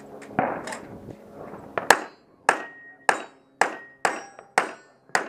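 A pistol firing a string of shots at targets, a shot roughly every half second through most of the stretch. Each is a sharp crack with a short ringing echo.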